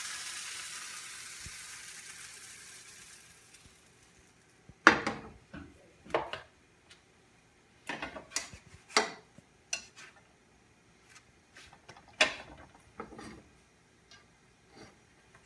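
A hot frying pan sizzles, a hiss that fades away over about four seconds. Then a series of sharp clanks and taps of a spatula against the pan on the gas stove, the loudest about five seconds in.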